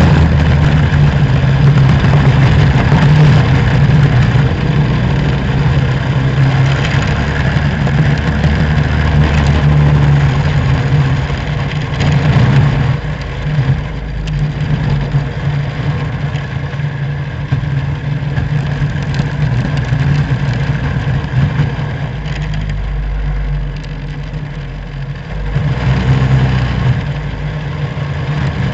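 Racing kart engine heard on board at race pace, its pitch and loudness dropping a few times as it slows for corners and rising again on the straights.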